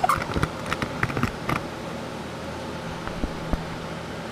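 A few sharp clicks and knocks of handling in the first second and a half, over a steady hiss with a faint low hum that does not change.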